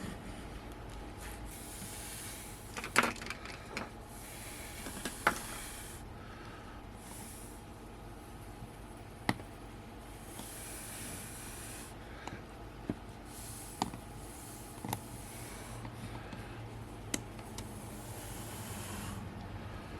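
Light clicks and taps of small tools and parts being handled while a Canon EF-S 18-200 zoom lens is taken apart, about seven scattered through the stretch, over a steady low hiss.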